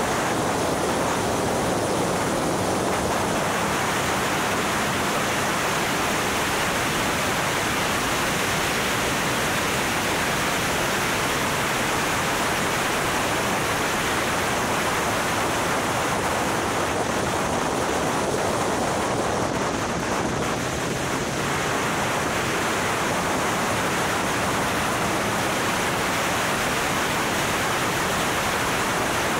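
Steady rushing wind noise over the microphone of a car-mounted camera at track speed, with the R300 car's engine faintly beneath it, its note shifting now and then.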